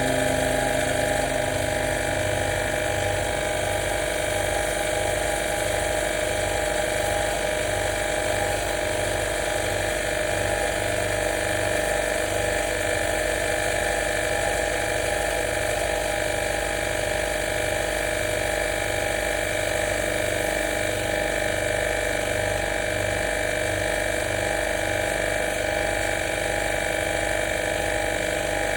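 Small electric pump motor running steadily, with a fast even pulsing hum under several steady whining tones, as from a washer pump used for spray-cleaning an air conditioner.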